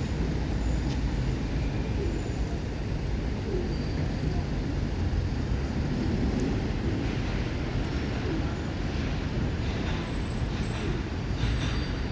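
Steady road-traffic rumble.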